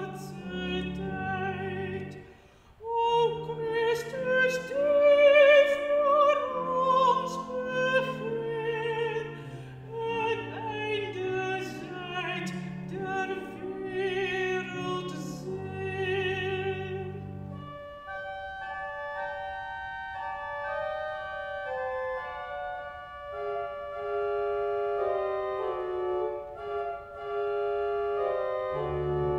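Alto voice singing with vibrato over church organ accompaniment, pausing briefly between phrases about two and a half seconds in. About eighteen seconds in the voice stops and the organ plays on alone in steady held chords.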